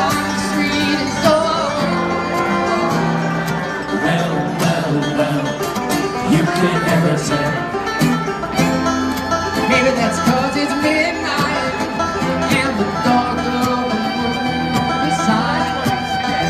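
Live band playing loudly, heard from the audience through a phone's microphone: electric guitar over a full band with steady sharp drum strikes, and a singing voice.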